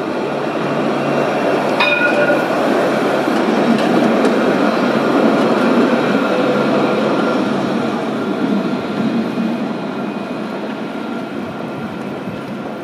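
Alstom Citadis street tram running past on its rails: wheel-on-rail running noise that swells to its loudest about five seconds in, then fades. A short sharp click sounds about two seconds in.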